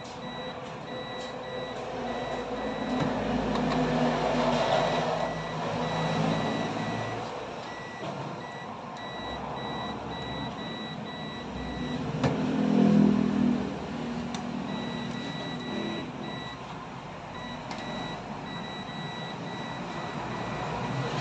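A vehicle's reversing alarm beeping at an even pace, over the engine noise of a large vehicle that swells twice, about four and thirteen seconds in. The beeping breaks off for a couple of seconds around the middle, and a sharp click comes just before the second swell.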